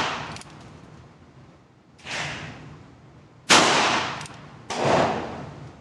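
Ruger Single Six .22 single-action revolver firing three shots, about two seconds in, at three and a half seconds and just over a second later. Each shot trails off in the indoor range's echo, and the first is quieter. A light click comes just before the last shot.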